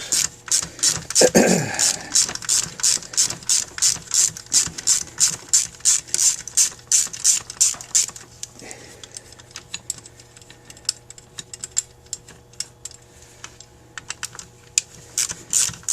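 Rapid, evenly spaced mechanical clicking, about four clicks a second. About halfway through it thins to scattered, fainter clicks.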